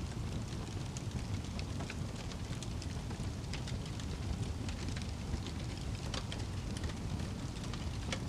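Wood fire burning in a fireplace: a steady low rumble of flames with frequent small, sharp crackles and pops from the logs.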